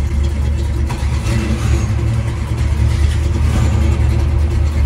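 Classic Chevrolet Camaro V8 engines idling with a steady low rumble.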